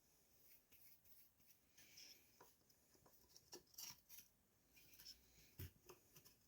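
Near silence with faint, scattered clicks and a soft knock about five and a half seconds in: parts and tools being handled during a chainsaw teardown.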